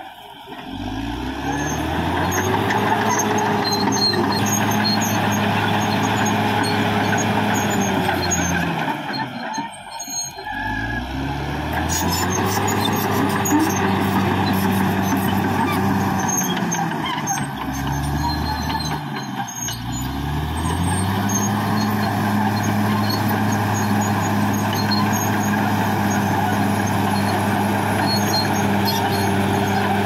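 Caterpillar D6R XL bulldozer's diesel engine running. Its note sinks and drops away twice, about a third and two-thirds of the way through, each time climbing back up to a steady pitch.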